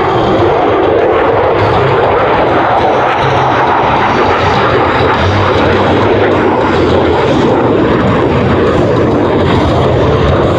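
Lockheed Martin F-22 Raptor's twin Pratt & Whitney F119 turbofan engines running at high power during a display pass. It is a loud, steady jet roar with no breaks.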